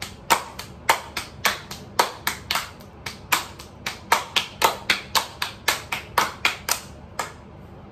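Hand-clapping game: two players' palms slapping together and against each other's hands in a quick, steady rhythm of about four claps a second, breaking off a little before the end when the round falls apart.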